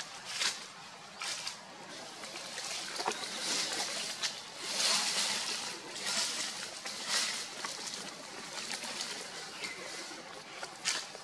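Long-tailed macaque biting and chewing ripe mango flesh close to the microphone, making irregular wet squelching and slurping sounds.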